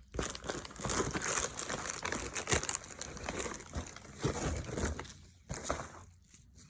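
Plastic packaging crinkling and rustling as it is handled and unwrapped, dense and irregular, dying away about five seconds in.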